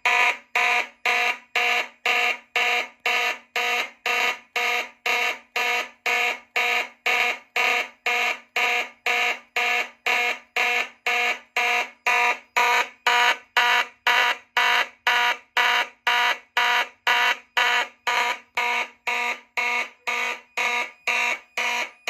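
Fire alarm horns sounding in march time, about two blasts a second. The system is in alarm from a smoke detector tripped with canned smoke.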